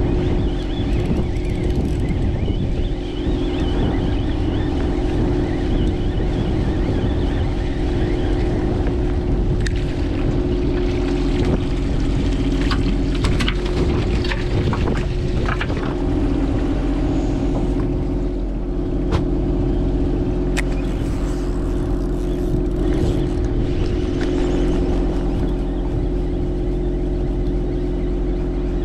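Fishing boat's engine running with a steady hum throughout. Scattered sharp clicks and knocks come in the middle stretch, most of them between about a third and two-thirds of the way through.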